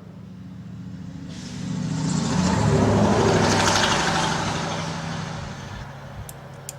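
A motor vehicle driving past: its noise swells over a couple of seconds, peaks midway and fades away, over a steady low engine hum.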